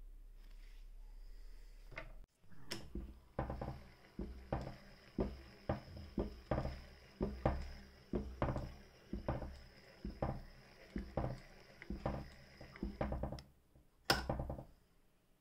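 Singer 201K sewing machine turned by its hand crank: a steady run of knocks, about two a second, with a thin high whine running alongside. The run stops, and a single sharp click comes near the end.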